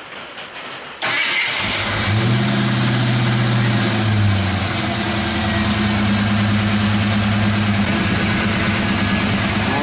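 1986 Ford Mustang V8 starting on the first attempt and catching about a second in. It runs at a high fast idle, drops to a lower steady idle a few seconds later, and stays there. This is its first start with the smog (air injection) pump removed, and it fires better than normal.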